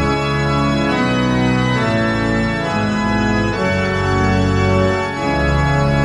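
Yamaha Motif XS6 synthesizer played in sustained chords with an organ-like patch, the chord changing about once a second.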